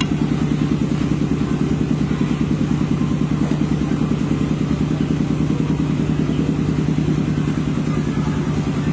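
A steady, low motor hum with a fast, even pulse, running without change.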